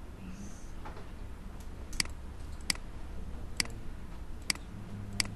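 Computer mouse clicking: about five sharp, separate clicks at uneven spacing, roughly one a second, over a low steady hum.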